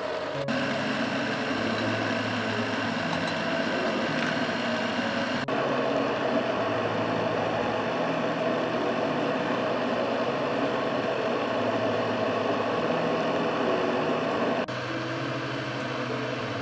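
Countertop electric blender running, blending a strawberry ice-cream mixture. It starts about half a second in, its sound shifts about five seconds in, and it stops shortly before the end.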